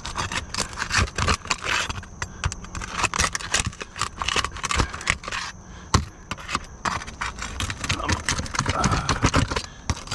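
Shingles being pried up and scraped and nails being worked loose: a run of irregular scrapes, clicks and rattles, with one sharp knock about six seconds in.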